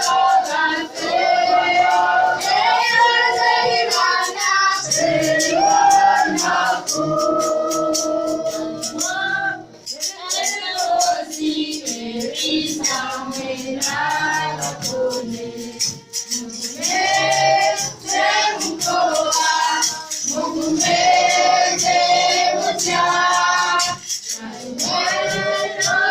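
A choir singing a worship song in chorus, over a steady percussion beat, with short breaks between phrases.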